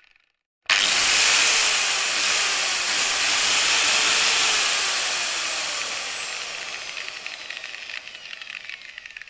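Angle grinder grinding metal: it starts abruptly, loud and hissing, with a very high whine that wavers a little, then from about halfway the whine slowly falls in pitch and the sound fades as the disc winds down.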